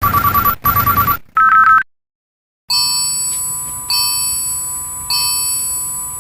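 Electronic low-battery alert sounds: two quick pulsing beep bursts and a higher beep in the first two seconds, then after a short gap a bright chime tone that sounds again about every 1.2 seconds.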